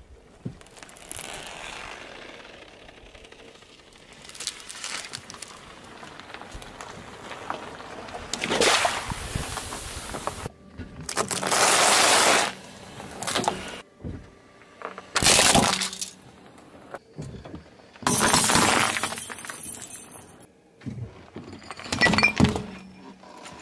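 A car tyre rolling over and crushing one object after another: several separate bursts of crunching and cracking with quieter gaps between. The loud crunch in the middle is a pile of tortilla chips being flattened under the tyre, and near the end sticks of sidewalk chalk crack and snap under it.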